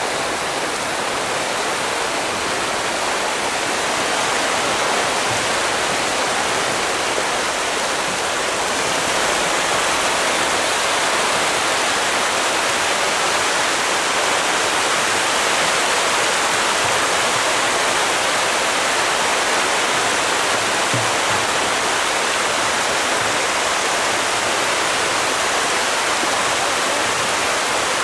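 A dense mass of striped catfish (tra) thrashing at the pond surface as they feed: a steady, loud rush of splashing water that swells a little over the first ten seconds.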